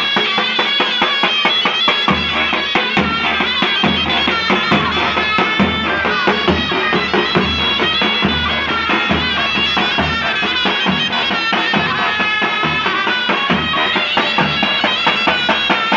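Two zurnas playing a shrill, ornamented Turkish folk melody together over the steady beat of a davul bass drum.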